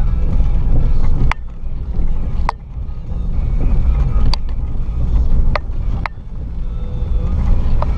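Lifted Jeep KJ crawling a rocky trail: a steady low rumble of engine and drivetrain, with about six sharp knocks as the vehicle jolts over the rough ground.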